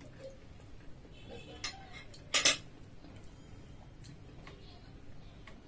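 Metal forks clinking against ceramic plates while eating: a light click about one and a half seconds in, then a short, louder clatter about two and a half seconds in.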